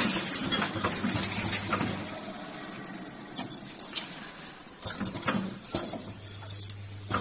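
Automatic O-ring assembly machine running: a steady low electrical hum that stops about two seconds in and starts again about five seconds in, with a few short clicks in between.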